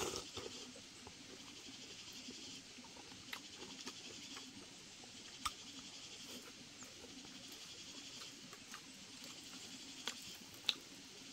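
A person eating with wooden chopsticks: a slurp right at the start, then quiet chewing with a few sharp clicks of the chopsticks, the loudest near the end.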